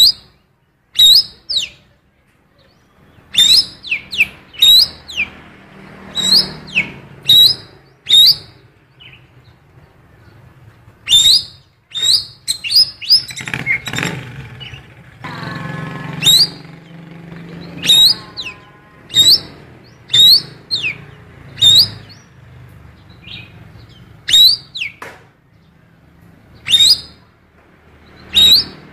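Cucak keling singing a string of loud, sharp chirps that each sweep downward in pitch, coming singly or in quick pairs, with a longer warbled call about halfway through. Its song is filled with female oriental magpie-robin calls.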